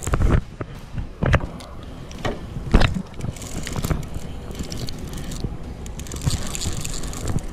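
Conventional saltwater fishing reel being cranked and handled right at the camera. Three loud knocks in the first three seconds, then steady scraping and whirring noise.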